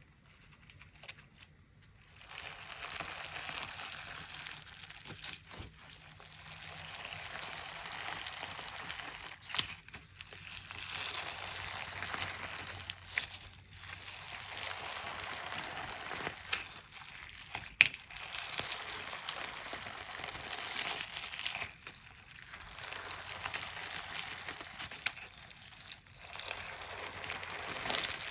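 Crunchy slime with stones mixed in, squeezed and kneaded by hand: dense crackling and crunching in stretches of a few seconds, broken by short pauses, with sharp pops throughout.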